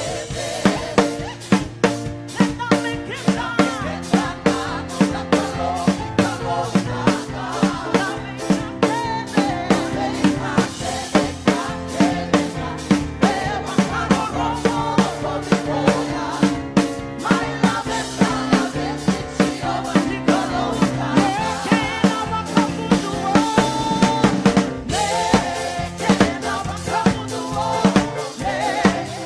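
Live worship band music driven by a drum kit, with a steady beat of snare and bass drum hits over sustained instrumental notes, and some singing.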